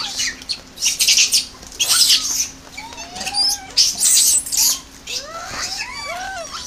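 A troop of macaques calling while they feed: many short coos that rise and fall in pitch, overlapping one another, with loud shrill bursts about one, two and four seconds in.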